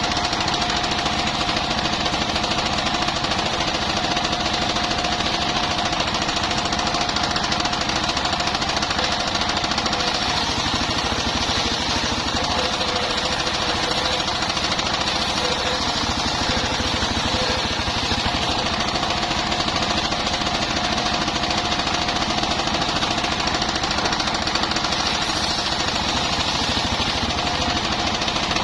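Portable circular sawmill running steadily, its engine and spinning blade sawing bayur timber into beams, a constant drone with a thin steady tone on top.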